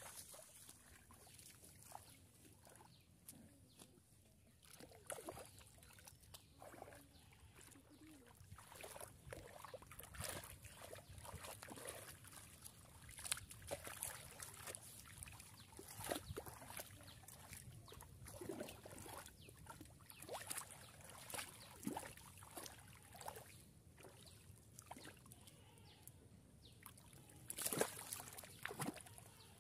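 Water sloshing and splashing in a shallow muddy puddle as a barefoot person wades and gropes through it with their hands for catfish. The splashes come irregularly, grow more frequent after the first several seconds, and are loudest near the end.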